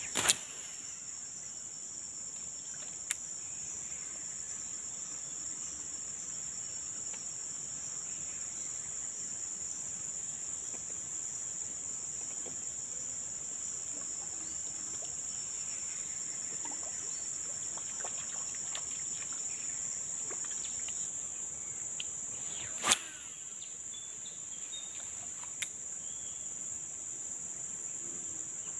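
Steady high-pitched insect chorus drones without a break, with a few short sharp clicks over it. The loudest click comes about 23 seconds in.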